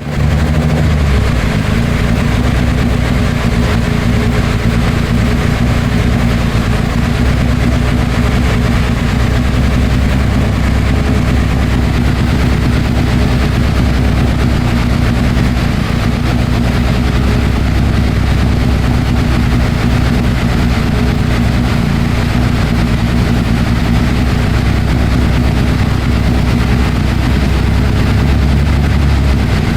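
AE82 Toyota Corolla engine with 300/294 camshafts running at a steady, unchanging speed on a dyno, loud, with no revving up or down.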